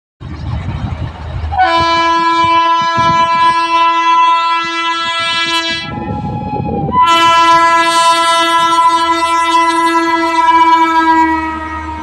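Indian Railways electric locomotive horn sounding two long blasts as it approaches at high speed, hauling an AC double-decker express, over the low rumble of the train. The pitch of the second blast sags slightly near the end as the locomotive passes.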